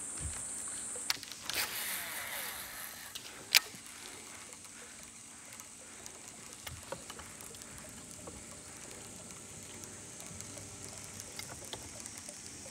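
High-pitched insect buzz, loudest in the first second, with a few sharp clicks and a brief rushing noise in the first four seconds. After that only a faint background with scattered small ticks remains.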